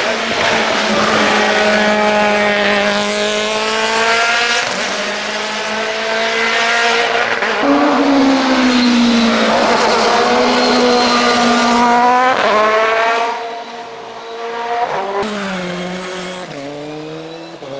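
Race car engine at full throttle accelerating out of a hairpin, its pitch climbing and dropping back again and again as it shifts up through the gears, then fading a little over a second from thirteen seconds in.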